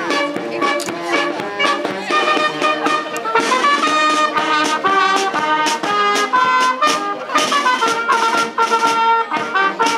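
A small band playing a tune: saxophones and other brass carrying the melody over regular snare drum strokes.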